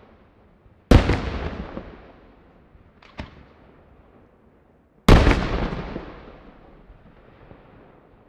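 Aerial firework shells exploding in a daytime display. Two loud booms come about a second and five seconds in, each trailing off in a long rolling echo, with a smaller sharp bang between them.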